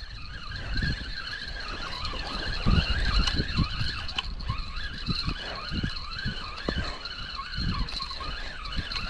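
A spinning reel's drag whining as a fish pulls line out: a continuous high whine that rises and falls in pitch over and over, with scattered low knocks.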